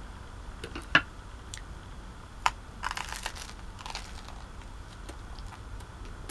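Biting into a crusty white bread roll spread with herb butter: a crackling crunch of crust about three seconds in, followed by chewing. Two sharp clicks come before it, about one and two and a half seconds in.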